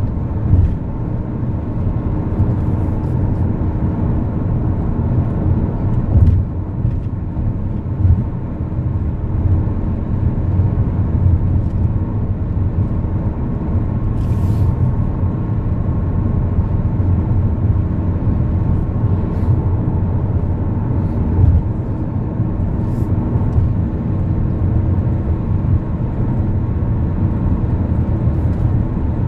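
Cabin noise of a Renault Laguna III cruising at motorway speed: a steady low rumble of tyres, wind and engine, with a faint steady hum over it. A few brief thumps break through about six, eight and twenty-one seconds in.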